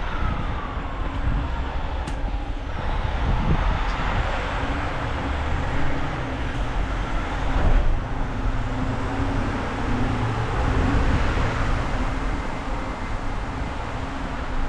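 Road traffic: motor vehicles running past with a continuous low engine rumble and road noise, a faint falling tone near the start.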